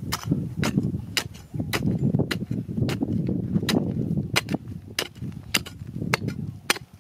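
Steel digging bar being driven again and again into dry, stony soil: sharp strikes about twice a second, with the low crunch of dirt and stones under them.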